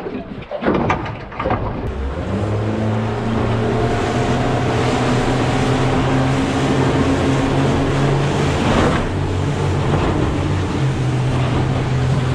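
Outboard motor on an aluminium boat running at speed, with water rushing along the hull. The engine note climbs a little over the first few seconds, then holds steady. A few short knocks come in the first two seconds.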